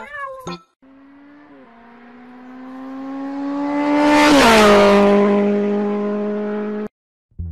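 A car driving past at speed: the engine note climbs and grows louder as it approaches, drops in pitch as it passes at its loudest about four and a half seconds in, then cuts off abruptly near the end.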